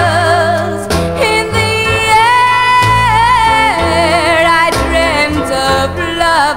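A teenage girl's solo voice singing with wide vibrato over instrumental backing, holding one long high note in the middle before the melody falls away.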